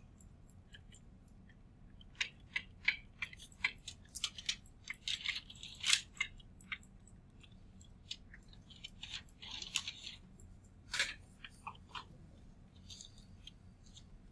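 A stylus tapping and scratching on a touchscreen as handwriting is written: an irregular string of sharp clicks and short scrapes, busiest from about two seconds in until about twelve seconds in.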